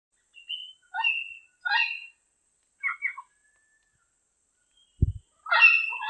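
Diademed amazon parrot calling: four short squawks spread over the first three seconds, a brief low thump about five seconds in, then louder, continuous squawking near the end.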